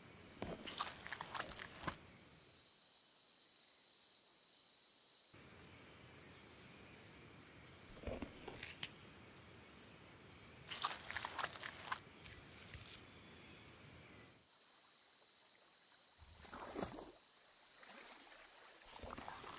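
Faint forest ambience with a high-pitched insect drone that comes and goes, broken by a few short bursts of crunching and tearing as a tiger feeds on a deer carcass.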